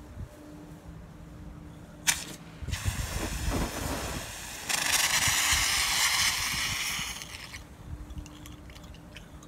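A refilled stored-pressure fire extinguisher, charged with water and air to about 72 PSI, discharging. A sharp click about two seconds in, then a spraying hiss that gets louder about five seconds in and dies away about two seconds before the end. It is a short discharge, with not much water in it.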